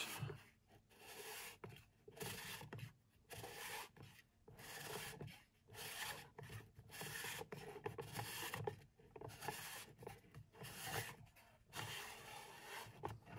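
Plastic union nut on the volute housing of an aquabee UP 12.000 electronic V24 pump being unscrewed by hand: faint rubbing and scraping of hands and plastic threads in short strokes, about one a second.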